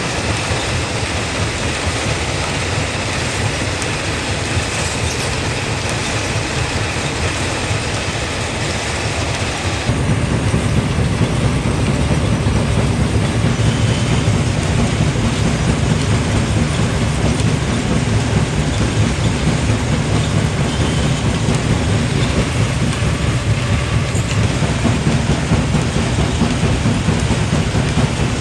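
Quarry primary jaw crusher running and crushing rock: a loud, continuous rumbling and grinding. About ten seconds in the sound shifts abruptly to a deeper, heavier rumble.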